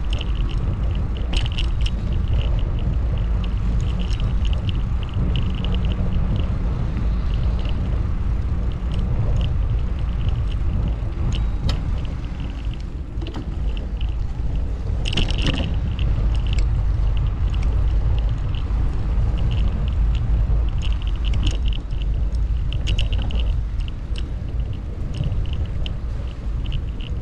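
Riding a bicycle through city streets: a steady low rumble of wind and road noise on the microphone, with frequent light ticks and rattles from the bike and one louder sharp click about fifteen seconds in.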